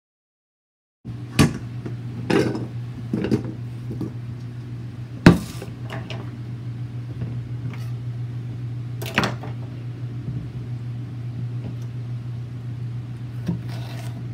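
After a second of silence, a steady low electrical hum from a kitchen appliance sets in. It runs under a handful of sharp knocks and clatters as vegetables, a steel bowl and a kitchen knife are handled on a wooden cutting board; the loudest knock comes about five seconds in.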